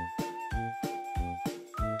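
Background music: a light tune over a steady beat.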